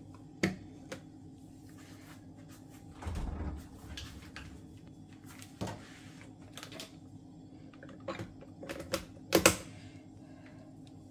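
Hard plastic clicks and knocks as a Braun hand blender's chopper attachment is assembled. The gearbox lid is seated on the bowl, with a duller thump about three seconds in. The loudest click comes near the end, as the motor handle snaps onto the lid. A faint steady hum runs underneath.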